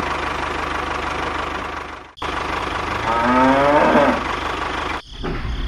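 Tractor engine running steadily, broken by two brief cut-outs, about two seconds in and again near the end. A cow moos once about three seconds in, over the engine.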